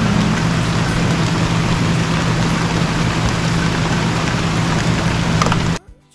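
Steady heavy rain shower falling, a loud even hiss with a low steady hum underneath; it cuts off suddenly near the end.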